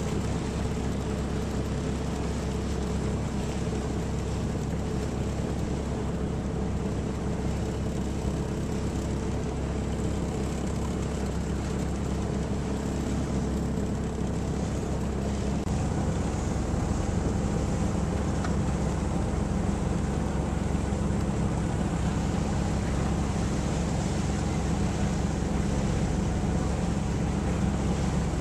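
A boat's engine running steadily under a broad rush of wind and water, growing a little louder about halfway through.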